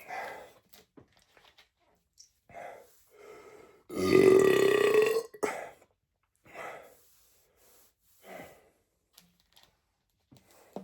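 A man's loud belch about four seconds in, lasting just over a second with its pitch rising slightly, among a few short, quieter sounds before and after.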